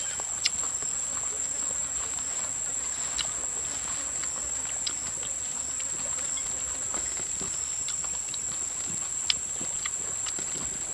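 Steady high-pitched drone of forest insects, with scattered light clicks and taps of bamboo chopsticks against a small cup, two sharper ones about half a second in and near the end.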